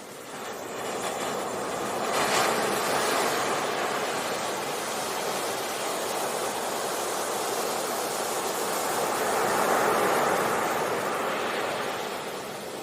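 Sea surf washing onto a beach: a steady rush of waves that swells as one wave breaks a couple of seconds in and another builds and breaks later, then eases off near the end.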